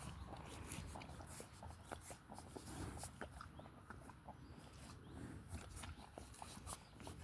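A horse chewing: a steady run of small crunching clicks, with a soft low breath every two to three seconds.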